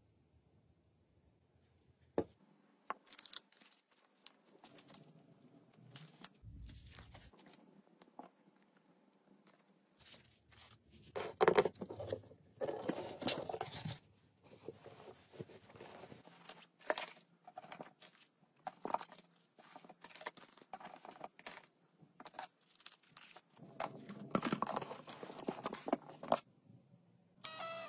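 Wrapping paper and kraft paper being handled for packing: crinkling, rustling and tearing in irregular bursts, with short taps and clicks in between. It is loudest in two stretches, a little before the middle and near the end.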